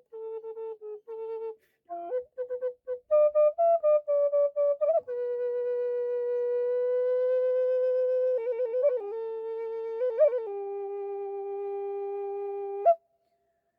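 Native American style flute played solo as a single melody line. Short separate notes climb for about five seconds, then a long held note with a slight waver, a few quick ornamented notes, and a lower held note that stops shortly before the end.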